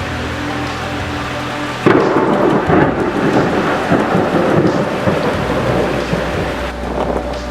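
Thunder over steady rain: a sudden close clap about two seconds in, then a rolling rumble that goes on for about five seconds and eases off near the end.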